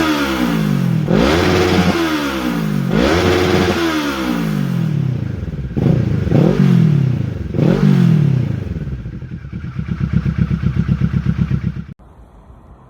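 Kawasaki ER-6n 650 parallel-twin engine on a full Leo Vince exhaust with the baffle removed, revved hard several times with the pitch falling back after each rev, then settling into a pulsing, uneven idle. The sound cuts off suddenly near the end.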